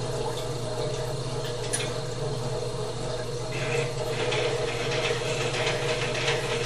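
A slow-speed wet whetstone grinder runs with its motor and drive humming steadily. From about halfway in, a chisel's steel bevel grinds against the turning water-fed stone wheel, a rough scraping hiss over the hum.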